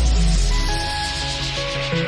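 Electronic background music: a deep bass note fades out during the first second under held synth tones.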